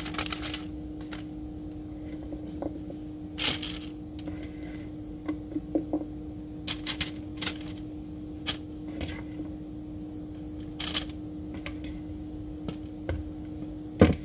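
String beans being laid along the sides of a baking pan: scattered light clicks and taps, with a sharper knock near the end, over a steady hum.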